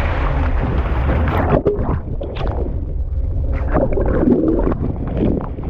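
Boat at sea: a steady low rumble under wind buffeting the microphone, with water splashing and gurgling against the hull.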